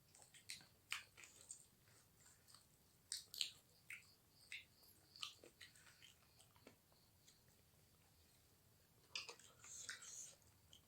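A person chewing and biting food close to the microphone: quiet, irregular little crunches and mouth clicks, a short pause about two-thirds of the way through, then a quick cluster of chewing near the end.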